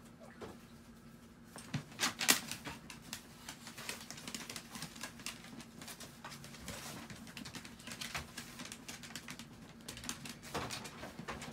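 A Chihuahua's claws scratching and clicking on a shallow plastic tray and its pad liner as the dog paws and moves about in it: a rapid, uneven scatter of small scrapes and taps, with a louder knock about two seconds in.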